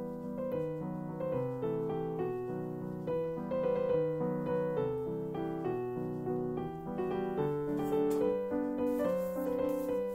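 Background piano music: a gentle melody of single notes over lower held notes.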